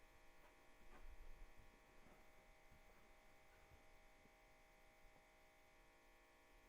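Near silence: a faint steady electrical hum, with a few soft low thuds about a second in.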